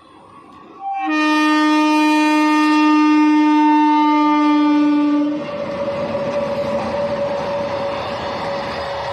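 Indian Railways electric locomotive's horn sounding one long, loud blast of about four seconds, after a brief higher note, then cutting off into the steady running noise of the passing train.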